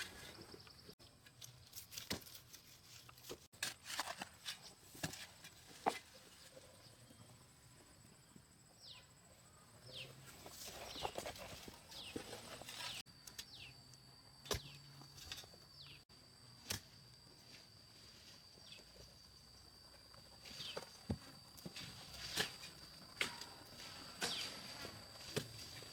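Scattered sharp clicks and knocks with some rustling, mixed with short high chirps that fall in pitch. A steady high-pitched tone comes in about halfway through.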